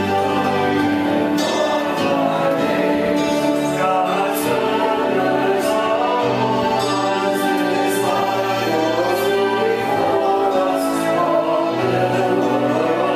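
Music: a worship song with several voices singing together over a steady bass line.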